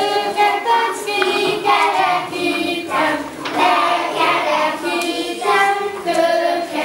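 A group of young children singing a song together, many voices in unison.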